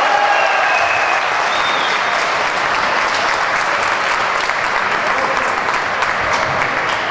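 Applause: many hands clapping steadily, greeting a goal just scored.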